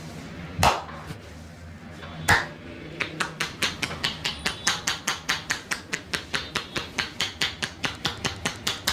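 Percussive massage: a barber's hands striking a customer's body, two separate heavy slaps, then about three seconds in a fast, even run of strikes at about four to five a second.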